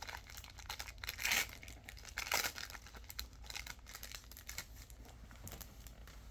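Foil wrapper of a Pokémon card booster pack being torn open and crinkled, with two louder rips about a second and two and a half seconds in.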